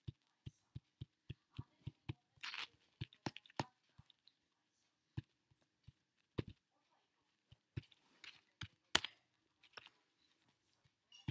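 Faint clicks and taps on a computer's keyboard and pointer: an even run of about four clicks a second at first, then scattered key taps and sharper clicks.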